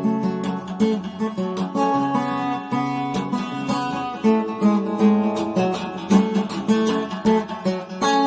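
Acoustic guitar played with plucked notes and strums, picking out a melody over chords.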